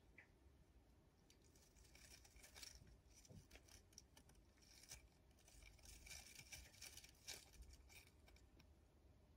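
Russian dwarf hamster faintly scratching and clicking at the hole of a wooden seesaw tube, with its head pushed into the hole: crisp little scratches in clusters, starting about a second in and dying away near the end.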